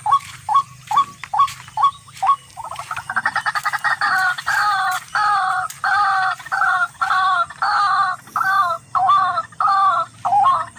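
Rhythmic calling of a tikling, a rail. Short notes come about three a second, then about two and a half seconds in the bird breaks into a fast rattling run. It settles into a steady series of doubled, two-toned notes about two a second.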